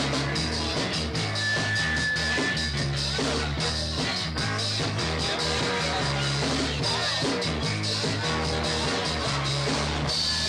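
Live rock trio playing: electric guitar, bass guitar and drums in a steady driving groove, recorded live on audio tape.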